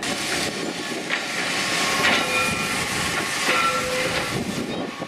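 Snaefell Mountain Railway electric tramcar moving along the rails, a steady running noise with brief high wheel squeals about two and three and a half seconds in.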